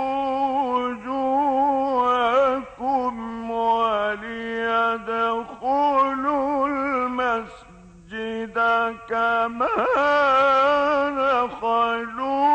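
A man reciting the Quran in the melodic mujawwad style, drawing out long held notes with ornamented turns and wavering. He breaks off briefly about eight seconds in, then takes up the line again.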